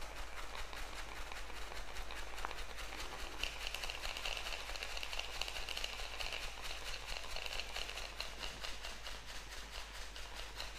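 Rapid, even tapping on a stainless-steel wire-mesh sieve as flour is shaken through it, the nuts and dried fruit left in the mesh rattling at each tap. A higher hiss joins about three seconds in and fades shortly before the end.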